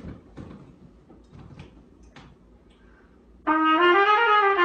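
A few seconds of faint knocks and handling noise, then a trumpet starts a loud held note about three and a half seconds in.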